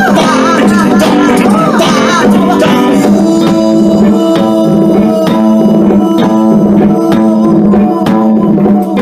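Live band playing a song: a sung line wavering with vibrato over guitar and drums for about the first two seconds, then the band carries on without vocals, with held guitar chords and regular drum and cymbal hits.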